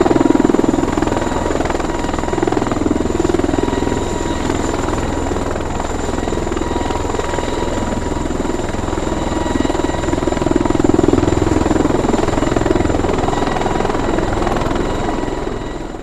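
Bell V-280 Valor tiltrotor on a ground run, its two proprotors turning in helicopter mode, driven by Rolls-Royce AE 1107F turboshaft engines: a loud, steady rotor noise that slowly swells and eases, with several thin, steady high whine tones over it.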